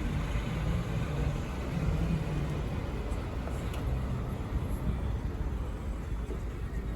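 Steady low rumble of vehicle noise, like a running car or road traffic.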